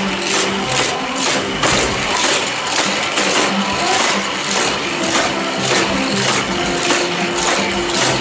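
Battery-powered booster of a Hot Wheels Criss Cross Crash loop track running with a steady motor whir, toy cars whooshing through it in a rapid, regular series about two or three times a second.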